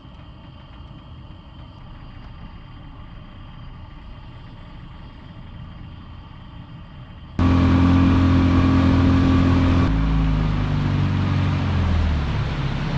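A boat's outboard motor comes in suddenly and loud about seven seconds in, running steadily, then throttles down with its pitch falling toward the end. Before that there is only a low steady rumble.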